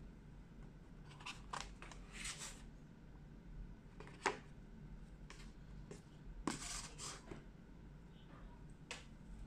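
A Xiaomi Mi 8 cardboard retail box being opened by hand: soft scrapes and rustles of the lid and inner card sleeve, with a few sharp clicks as the phone is lifted from its tray. The sharpest click comes about four seconds in, and a longer rustle comes a little after six seconds.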